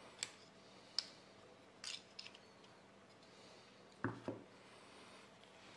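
Small plastic and metal parts of a 3D-printer extruder being handled and pulled apart by hand: four light clicks in the first two and a half seconds, then a duller knock about four seconds in.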